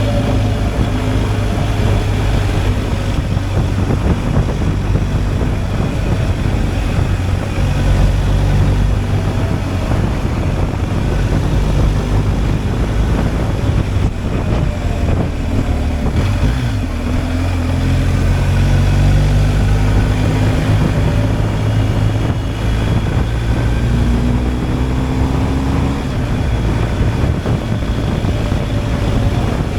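BMW R 1250 GSA's flat-twin boxer engine running under way, its note falling and rising as the revs change, over a constant rush of wind and road noise.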